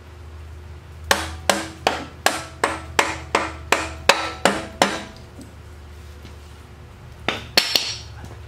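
Hammer striking steel on the arm linkage of a John Deere 27C mini excavator: eleven ringing metal blows at about three a second, then a quick burst of three or four sharper ones near the end.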